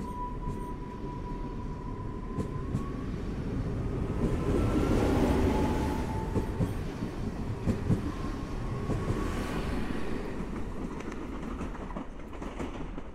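SKM suburban electric multiple unit, most likely a Newag Impuls (35WE), running past along the platform and pulling away. Wheels rumble on the rails, with a few knocks over rail joints, under a thin electric traction whine that steps up and down in pitch. It is loudest about five seconds in and fades as the train draws off.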